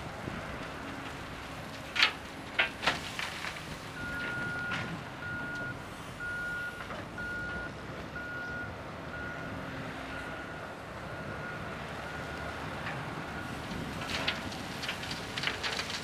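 CAT D400E articulated dump truck's diesel engine running while its reversing alarm sounds a steady series of short beeps, starting about four seconds in. A few sharp knocks come about two seconds in, and a cluster of clattering near the end.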